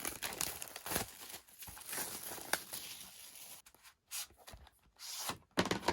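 Plastic wrapping being torn open and crinkled by hand, in bursts of crackling with short pauses, as a new album is unwrapped.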